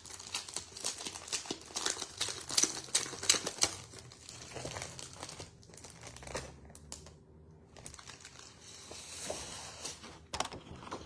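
Clear plastic sleeve crinkling and card sheets rustling as linen-effect cardstock is handled and slid out of its packet. The crackling is busiest in the first few seconds, then thins out to scattered crinkles.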